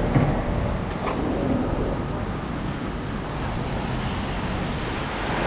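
Shallow ocean surf washing around the legs, with wind buffeting the microphone: a steady rushing noise, with one brief click about a second in.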